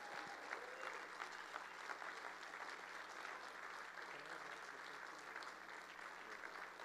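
A congregation applauding in a large room, a steady patter of many hands clapping that slowly dies down.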